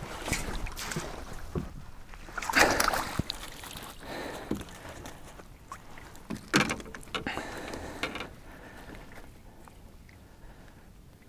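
Scattered knocks, clatter and splashy handling noises in a small fishing boat as a just-hooked perch is landed and handled. The loudest knocks come about two and a half and six and a half seconds in, and it grows quieter toward the end.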